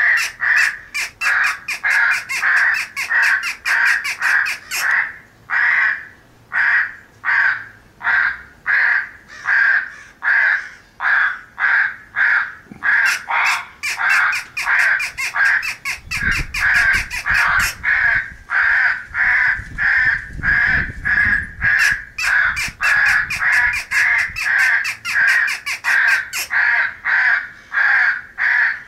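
A flock of crows cawing, feeding corvids calling over one another in a fast, unbroken run of about two to three harsh caws a second.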